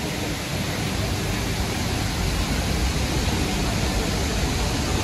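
Steady, even rushing noise with no rhythm and no distinct events, filling a large glass-domed indoor garden.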